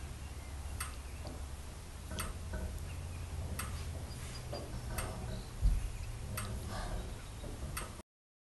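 Sharp ticks repeating evenly about once every second and a half over a low steady rumble, with one dull thump about six seconds in.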